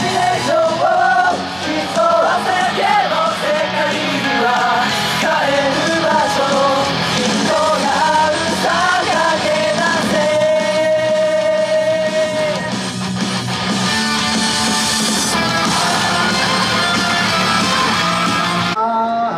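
Pop dance song sung by a male vocal group over a backing track, with one long held note about halfway through. The sound changes abruptly near the end.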